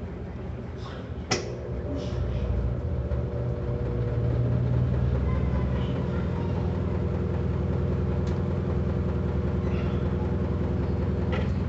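Electrolux LAC12 top-loading washing machine running: a sharp click about a second in, then its motor hum builds over a couple of seconds and holds steady.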